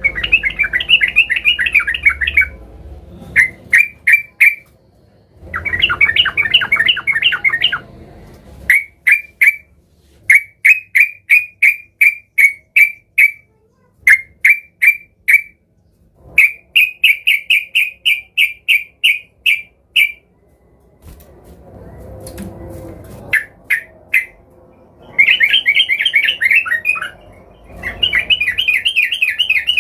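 Yellow-vented bulbul (trucukan) singing hard: phrases of quick, repeated bubbly notes, broken by a few fast chattering runs of about two seconds and short pauses. It is the agitated, rival-seeking song used as a lure to make other bulbuls sing.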